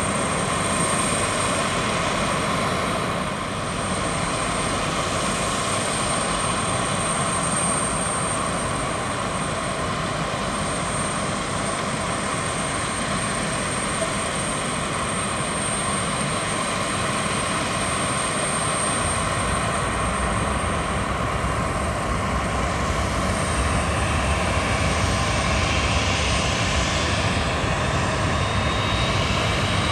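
Boeing 737-800 airliner's CFM56-7B jet engines running steadily on departure, a continuous roar with a thin high whine. About two-thirds through a deeper rumble comes in and the sound grows slightly louder.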